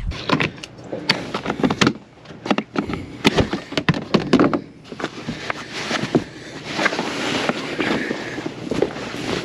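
Knocks and clatter from a plastic storage tote and the boat's enclosure panels being handled, with the lid moved, then a few seconds of cloth sheets rustling.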